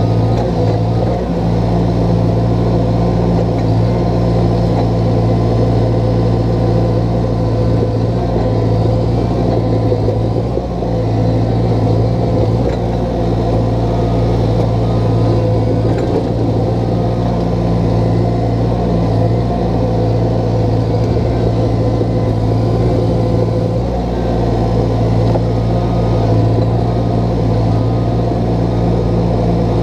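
Diesel engine of a small crawler dozer running steadily, heard from the operator's seat.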